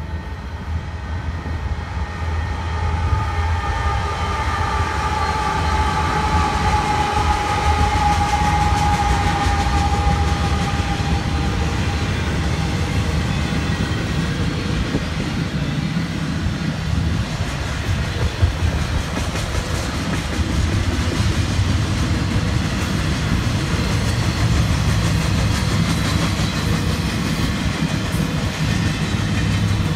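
Union Pacific double-stack intermodal freight train passing close by. The diesel locomotives' rumble builds over the first few seconds, joined by a steady tone that slowly drops in pitch and fades out about twelve seconds in. After that, container well cars roll past with a steady rumble and clatter of wheels on rail.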